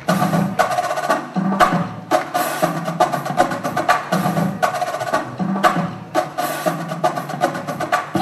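Dance music with prominent percussion: a driving beat of sharp, knocking strikes over denser pitched layers, starting abruptly.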